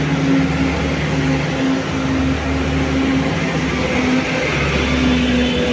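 Motorcycle engine idling steadily close by, an even hum that holds without revving.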